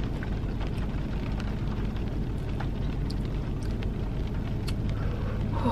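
Rain on a car, heard from inside the cabin: a steady low rumble with scattered light taps of drops.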